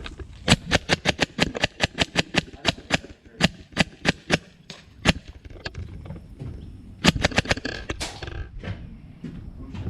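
Airsoft gun firing a quick string of single shots, roughly twenty sharp cracks over about four and a half seconds, then a short burst of a few more about seven seconds in.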